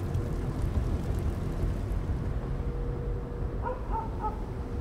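Low, steady ambient rumble with no clear events. A faint held tone joins about halfway, and a few short high notes come near the end.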